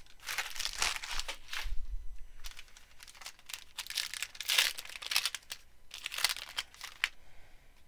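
Foil wrapper of an Onyx Vintage Extended baseball card pack crinkling as it is handled and torn open by hand, in a run of short rustles that stop about seven seconds in.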